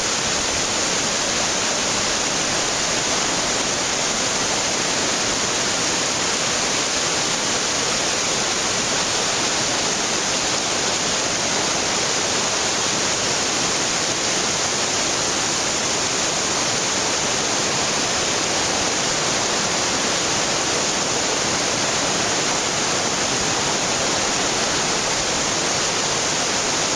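Mountain torrent rushing over boulders: a steady, even rush of white water with no change.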